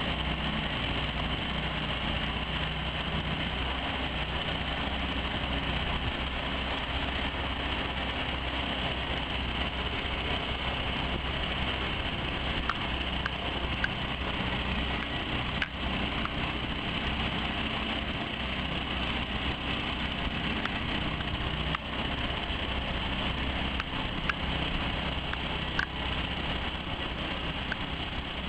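Bawad 113 outboard mud motor running steadily at a constant speed, with a few faint ticks.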